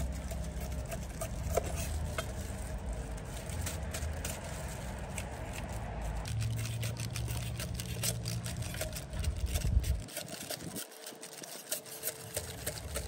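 Large kitchen knife shaving the rind off a stalk of sugarcane in repeated short scraping strokes. A steady low rumble runs beneath and stops about ten seconds in.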